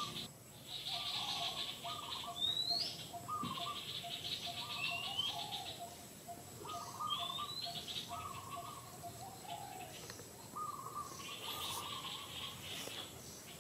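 Birds calling again and again in short phrases, with a few quick rising chirps, over a pulsing high insect trill that stops and starts.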